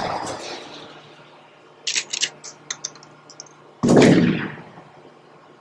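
Intro sound effects: a hit that fades, a quick run of sharp metallic clicks about two seconds in, then a loud gunshot-like blast just before four seconds that dies away.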